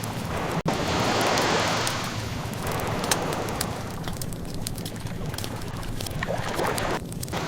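Ocean waves washing in and ebbing away, overlaid with the light crackle and pops of a burning wood fire.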